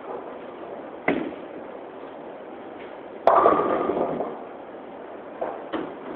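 Tenpin bowling pins crashing as a ball strikes them: a sharp knock about a second in, then a loud crash about three seconds in that dies away over about a second, with a couple of lighter knocks near the end over the steady background noise of the alley.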